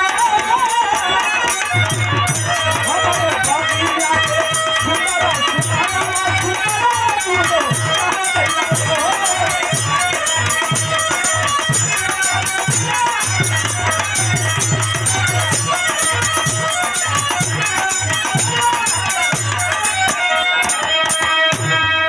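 Instrumental interlude of Bhojpuri birha folk music: a low drum beat with jingling hand percussion and a wavering melody line over it.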